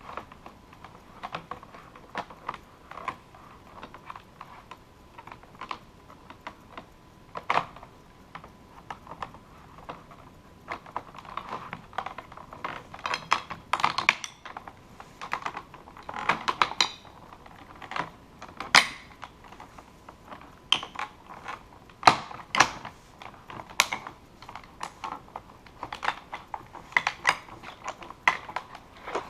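Irregular plastic clicks and knocks from a Microsoft Wireless Laser Keyboard 5000 being handled and pressed during reassembly, with a few louder knocks scattered through.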